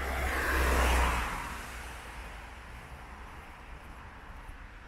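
A car passing on a wet road, its tyre hiss swelling to a peak about a second in and then fading away.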